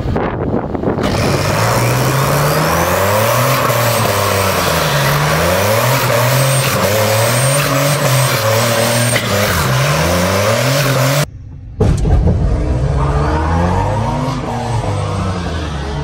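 Minivan engines revving up and down over and over, under load, while front tires spin on pavement with a steady hiss of tire noise. There is a brief gap about eleven seconds in, then the revving goes on a little quieter.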